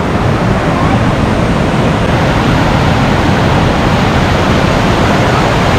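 Waterfall: rushing, falling water making a steady, loud, unbroken rush.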